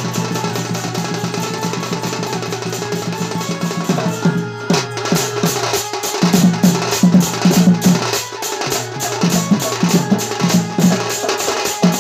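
Dhol, a two-headed barrel drum, played fast by hand as danda dance music. About four seconds in the drumming breaks off briefly, then comes back with heavier, louder beats in quick groups.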